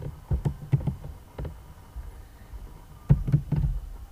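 Typing on a computer keyboard: a few separate keystrokes in the first second and a half, then a quick run of several keystrokes a little after three seconds in.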